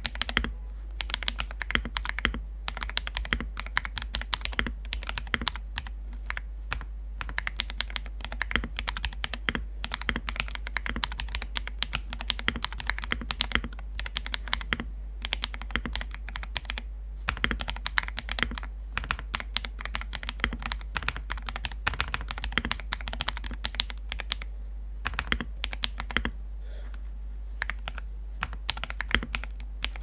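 Fast typing on a Zuoer64 mechanical keyboard fitted with clicky Gray Wood switches: a dense, irregular stream of crisp key clicks, broken by short pauses every few seconds.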